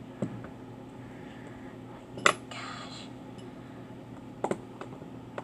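Sharp clicks and taps of small hard phone parts being handled during disassembly, the loudest about two seconds in followed by a brief scrape, and a quick double click near the end.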